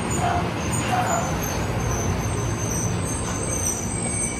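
Tokyo Metro Marunouchi Line 2000-series subway train pulling into the station and braking, a steady rumble of the cars rolling past the platform. Thin high squeals sound over it as it slows.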